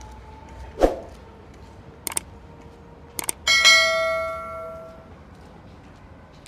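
Subscribe-button sound effect: two quick pairs of clicks followed by a bright notification-bell ding that rings out and fades over about a second and a half. A single dull thump comes about a second in, over a low steady hum.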